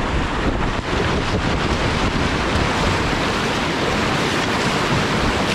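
Steady, loud rush of whitewater rapids churning close around a kayak as it paddles up into the current.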